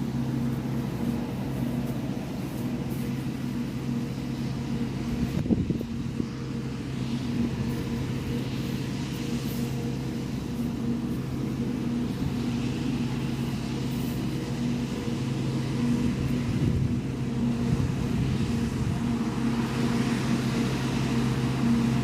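Diesel engine of heavy maize-harvest machinery running steadily at constant revs, with a brief knock about five and a half seconds in.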